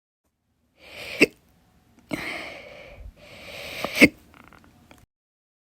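A person hiccuping twice, about three seconds apart. Each hiccup is a short breathy intake cut off by a sharp click, with breathing in between.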